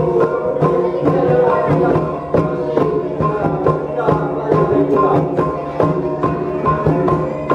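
Traditional Dayak (Iban) music accompanying a ngajat dance: a fast, steady beat of struck percussion, about four strikes a second, over held ringing tones.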